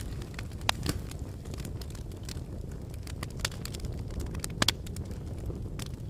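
Wood fire in a fire pit crackling, with irregular sharp pops over a steady low rumble. Two louder pops come about a second in, and a quick double pop comes past the middle.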